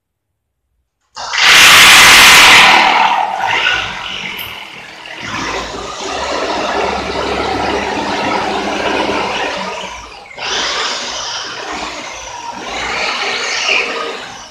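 Electric power drill drilling into the wall at a panel box. It starts about a second in with its loudest, harshest stretch, runs on steadily with a brief break about ten seconds in, and stops near the end.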